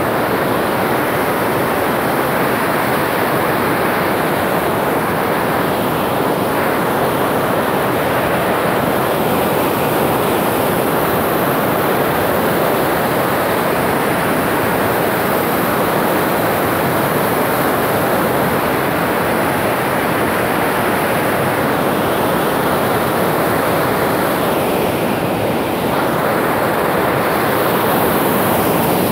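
Loud, steady rush of white water pouring through an open hydroelectric dam spillway during a spring flood release.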